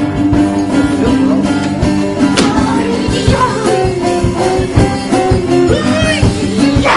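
Music with guitar and a singing voice, ending abruptly near the end.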